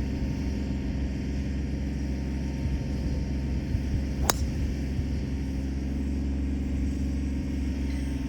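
A golf driver striking a ball off the tee: one sharp crack about four seconds in, over a steady low rumble.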